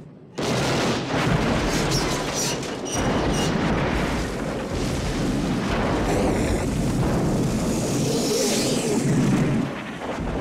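Explosion of a burning locomotive as it crashes: a sudden loud blast about half a second in, then a long heavy roar with a few sharp cracks early on, dropping off near the end.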